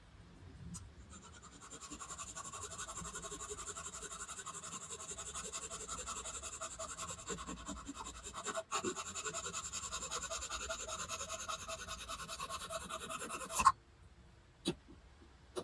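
Small handheld electric tool motor buzzing steadily for about twelve seconds, then stopping with a sharp click.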